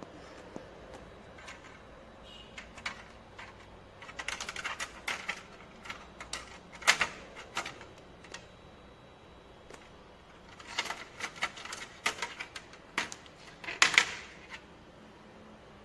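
Clicks, taps and knocks of a 3.5-inch hard drive being handled and set into a DVR's sheet-steel case, in two bouts of rapid clicking with a few louder knocks.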